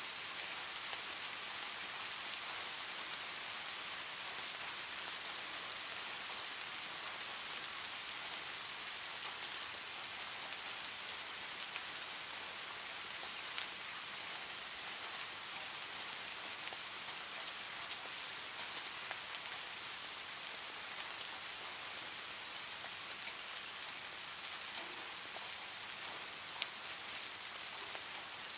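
Steady heavy rain drumming on a tin roof: a dense, even hiss with scattered sharper drop ticks, two of them standing out.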